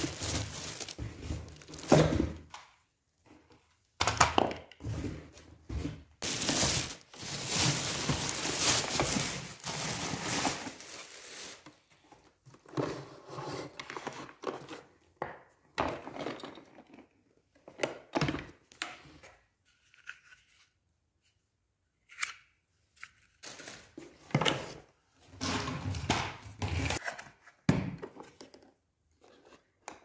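Plastic wrapping crinkling and tearing in irregular bursts with pauses as a new vacuum cleaner is unwrapped, with a few thunks of its plastic parts being handled and set down.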